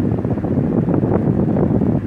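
Electric fan running: a steady, loud rush of moving air, low in pitch, with a fluttering unevenness as the airflow hits the microphone.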